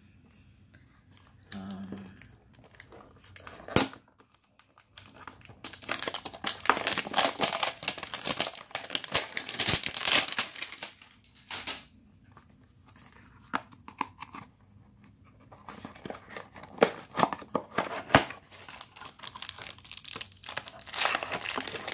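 Plastic wrapping being torn and crinkled off a cardboard trading-card box, in two long spells of dense rustling with a few sharp clicks and quiet gaps between.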